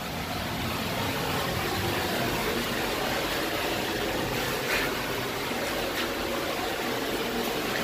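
Steady mechanical hum and whoosh of a motor or fan running.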